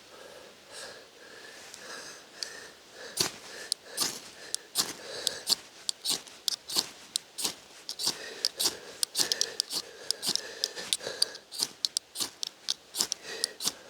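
Repeated puffs of breath blown onto smouldering tinder to coax it into flame, with sharp crackles that grow more frequent as the tinder catches.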